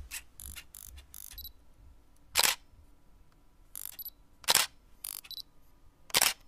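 A series of short, sharp clicks, the three loudest about two seconds apart, with fainter clicks between them over a faint low rumble.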